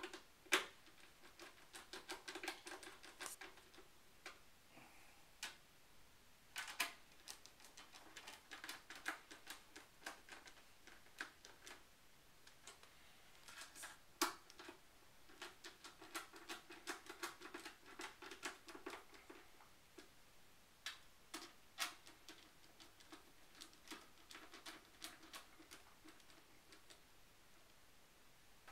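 Hand screwdriver driving the power supply's bottom screws into a Power Mac G5's metal case: irregular small clicks and ticks of the screwdriver turning in the screw heads, with a few sharper knocks.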